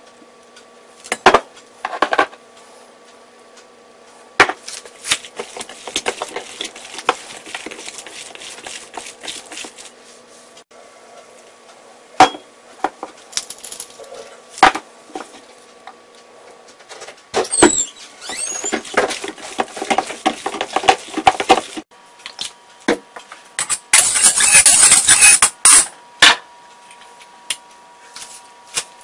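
Metal spoon clinking and scraping against a stainless steel mixing bowl as ground pork is stirred with seasonings, with scattered sharp knocks and a longer burst of dense clattering near the end. A faint steady hum runs underneath.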